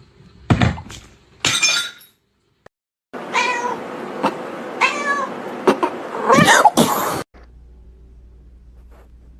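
A cat meowing several times: short calls in the first two seconds, then more calls over background noise that cuts off suddenly after about seven seconds, leaving a low hum.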